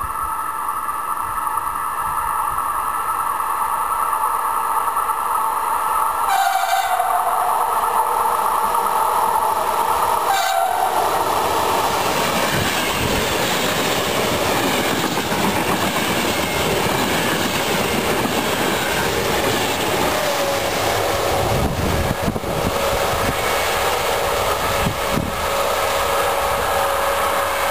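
Electric passenger train with double-deck coaches approaching and passing close at speed, its wheels rumbling and clattering on the rails; a horn sounds as it approaches. Near the end a second train, hauled by an E.464 electric locomotive, approaches with a steady whine.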